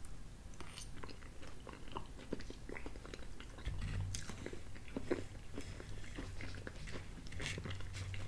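Close-miked chewing and mouth sounds of a man eating a soft, soupy chicken pot pie, with small scattered clicks and scrapes of a metal spoon in the bowl.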